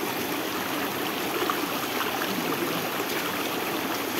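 Spring water falling steadily, a continuous even rush of water.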